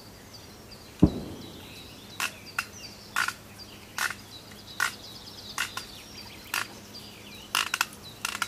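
A single dull thump about a second in, then short sharp calls repeating about once a second, with faint birdsong twittering behind.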